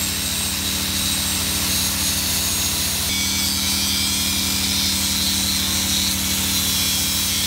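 Arc welding on a light truck's steel chassis frame: the welding arc crackles and hisses over the steady hum of a running engine. About three seconds in, the sound thickens as the arc takes hold.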